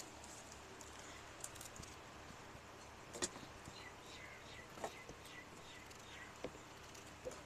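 Faint quiet background with a few scattered sharp knocks, roughly one every second and a half from about three seconds in, and a short run of high chirps in the middle.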